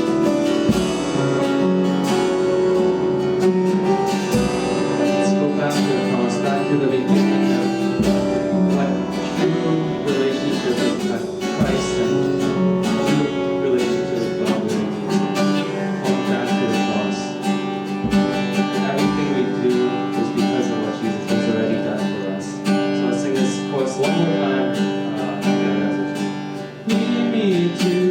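Instrumental music led by guitar, with strummed chords over a steady accompaniment.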